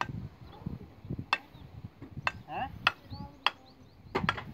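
Hammer blows on wooden roof battens: about five sharp, ringing knocks at an uneven pace, roughly one every half second to second.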